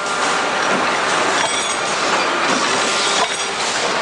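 Loud, steady machine-shop clatter from a punch press punching the locating slot in plier parts, with a few sharp metallic knocks.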